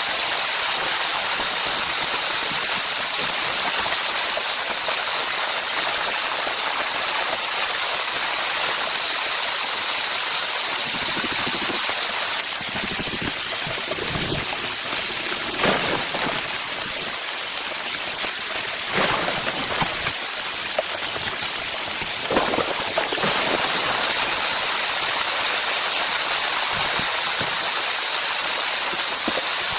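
Steady rain falling, a continuous even hiss. A few short louder knocks sound in the middle stretch.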